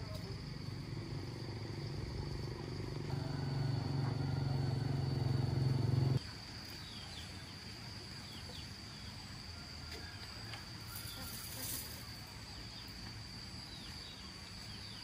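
An engine runs, getting louder, and cuts off suddenly about six seconds in. A steady high insect drone with faint chirps continues throughout.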